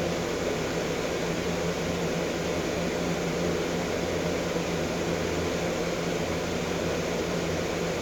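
Steady fan-like hum and hiss of background room noise, with a low steady hum beneath; nothing starts, stops or changes.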